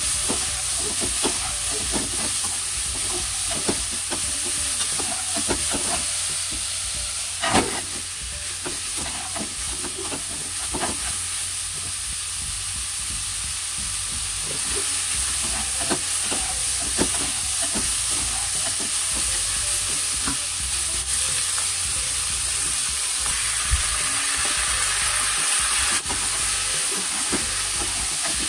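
Bitter melon, pork and onion sizzling in a hot frying pan while a slotted spatula stirs and scrapes them, with scattered taps of the spatula against the pan and one sharper knock about seven and a half seconds in.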